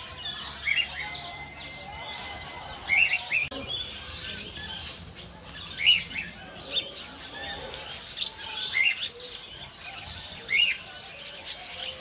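Many small birds chirping and tweeting together, a chorus of short high calls, with one short call recurring several times.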